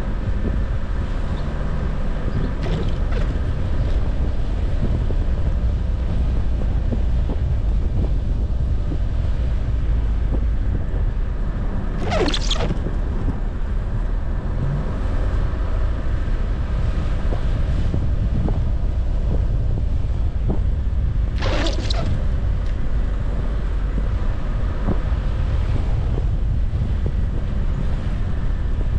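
Car driving slowly over unplowed, packed snow: a steady low rumble of engine and tyres. Twice, about ten seconds apart, a brief higher swish cuts through.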